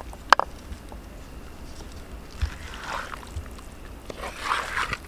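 Wooden spatula stirring and scraping thick beef roast in an earthen clay pot, in two short bouts, after a single sharp knock about a third of a second in.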